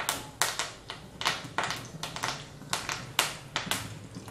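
Mustard seeds, cumin and fresh curry leaves spluttering in hot oil in a kadhai during a tempering (phodni): irregular sharp pops and crackles, a few a second.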